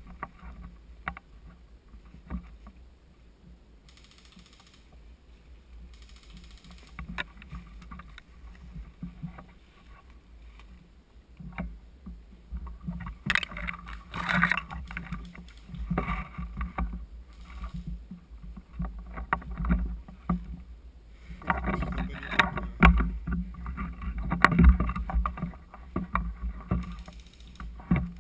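Low rumble with scattered sharp clicks, typical of movement and handling noise on a player-worn camera microphone, with two longer stretches of louder rustling noise, about 13 seconds in and again from about 21 to 26 seconds.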